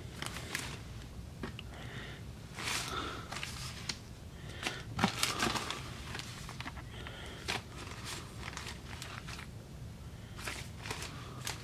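Clear plastic bags and old wax-paper candy wrappers crinkling and rustling as they are handled, in irregular bursts with a few sharper crackles.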